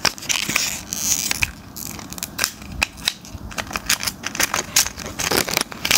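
Plastic blister packaging of a small padlock being handled and pried open: a run of crackling and sharp clicks of stiff plastic and card.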